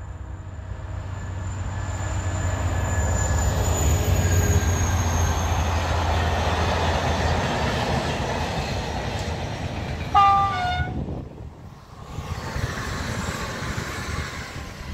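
A freight train passing close by: the locomotive's low drone and rush build up over the first few seconds, then the open freight wagons rumble and clatter past steadily. About ten seconds in a train horn sounds briefly in two stepped tones, the loudest sound here, before the noise dies away and a rushing noise rises again near the end.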